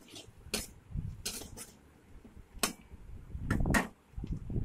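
Metal spatula scraping and clinking against a metal kadai while stirring spices into frying onions: a string of short, separate scrapes, busiest near the end.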